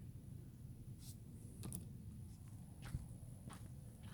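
Quiet low background rumble with a few scattered light clicks or taps.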